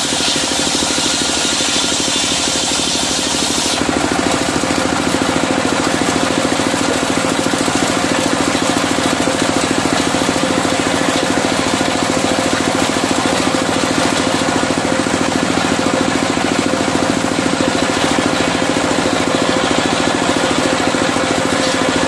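Single-cylinder diesel engine running steadily with a fast, even beat as it drives a circular sawmill blade. For the first four seconds or so a high hiss from the blade finishing a cut through medang timber rides over it, then stops, leaving the engine and the free-spinning blade.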